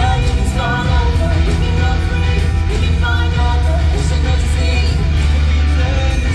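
Loud rock music with a singer over a heavy, steady bass and drums, from a live stage show's sound system.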